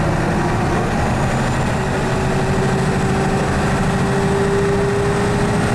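Engine and drivetrain of a 1976 FBW bus running steadily while the bus drives along, heard from inside. A faint whine climbs slightly in pitch from about two seconds in.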